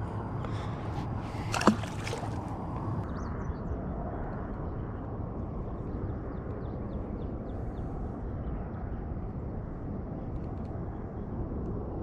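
Water sloshing around a small fishing boat over a steady low rumble, with one sharp knock about two seconds in.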